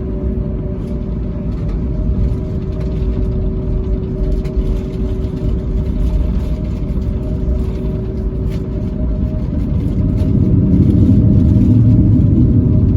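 Airbus A321neo engines and cabin heard from a passenger seat: a steady hum with two held tones over a low rumble, the rumble growing louder about ten seconds in.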